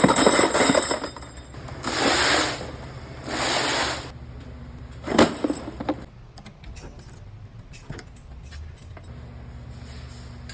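Metal clinking and rattling in three short bursts, then a single sharp clink about five seconds in, with a low steady hum underneath for the rest of the time.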